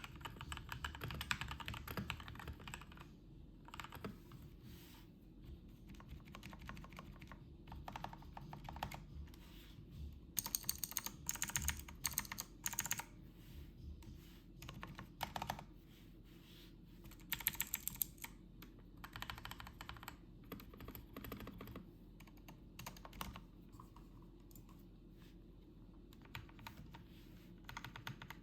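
Typing on a Redragon Fizz 60% mechanical keyboard: rapid key clicks in flurries separated by short pauses, with a quieter patch of lighter typing near the end.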